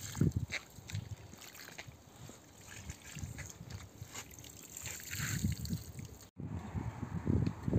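Water from a garden hose trickling and splashing over a rolled-up carpet on wet concrete, with irregular low rumbles. The sound breaks off abruptly about six seconds in.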